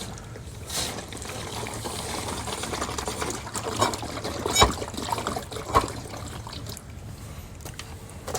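Water trickling out of a leak at the pool filter's air-relief knob, a sign of a worn cap kit seal, over a steady low hum, with a few sharp clicks, the loudest about four and a half seconds in.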